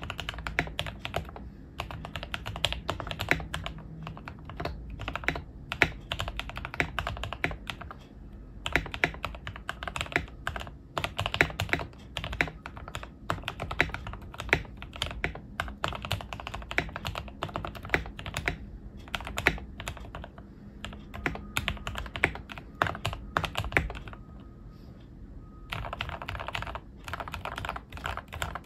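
Typing on an Obinslab Anne Pro 2 keyboard modded with lubed Gateron Red linear switches, foam dampening and a tape mod: a steady run of irregular key clacks. There is a short pause near the end.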